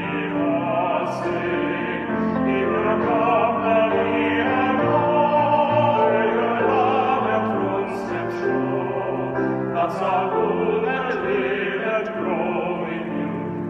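A male vocal quartet singing a slow sacred song in harmony, accompanied by a grand piano.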